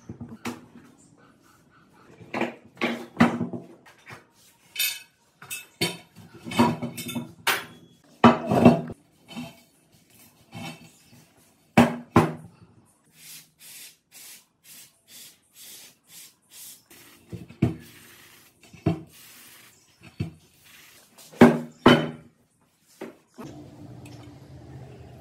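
Irregular knocks and metallic clatter as a rusty spoked wheel rim from a Minsk 125 motorcycle and its tyre are handled on a wooden workbench while the rubber inner tube is pulled out, with a stretch of rubbing and scraping about halfway through.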